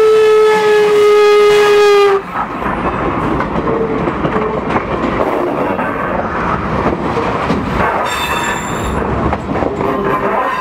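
Steam locomotive No. 475's whistle sounding one long blast that cuts off about two seconds in, its pitch dipping slightly as it stops. Then freight cars roll past close by with steady rumbling wheel clatter on the rails and a brief high squeal near eight seconds.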